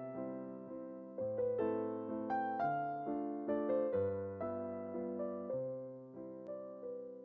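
Background piano music: slow phrases of struck notes that start loud and fade as they ring.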